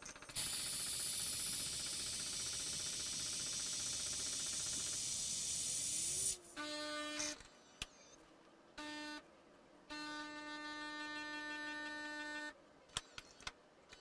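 Gaggia Velasca Prestige espresso machine making a cappuccino, sped up five times: a loud steady hiss of steam as the auto-frothing carafe froths milk for about six seconds, then the machine's pump humming in three separate stretches as the espresso is brewed. A few short clicks near the end.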